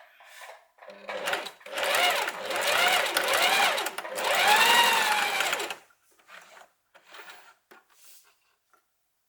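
Electric sewing machine stitching for about five seconds, its motor whine rising and falling in pitch as it speeds up and slows, then stopping. Faint clicks and rustles of fabric being handled follow.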